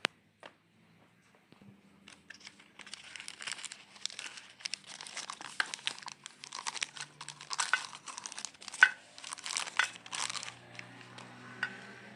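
Crinkling and crackling of something being handled and crumpled, starting about two seconds in and dying away near the end, after a single sharp click at the start.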